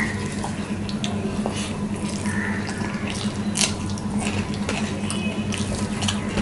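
Wet squelching of rice and curry being mixed and kneaded by hand on a stainless steel plate, with a few sharp clicks of fingers against the metal. A steady low hum runs underneath.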